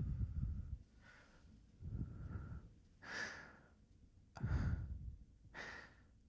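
Breath blown into the ear of a binaural microphone: a long blow with wind rumble on the mic fading out within the first second, then five short breathy puffs about a second apart, the fourth the strongest.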